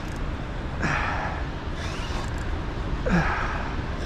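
A man breathing hard: two heavy, breathy exhalations about two seconds apart, from an overheated angler straining at the rod, over a steady low rumble.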